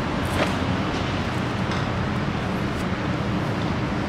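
Steady hum of city street traffic, cars driving by.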